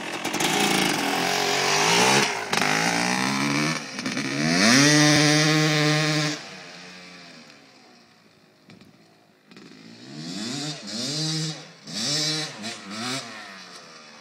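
Yamaha YZ250 two-stroke dirt bike engine revving hard as the bike pulls away, its pitch climbing about four seconds in, then fading as it rides off. Later come several short, distant rev bursts, each rising and falling, as it slides around on dirt.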